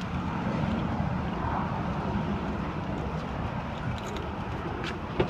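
Steady low rumble of outdoor vehicle background noise, with a few faint clicks about four seconds in.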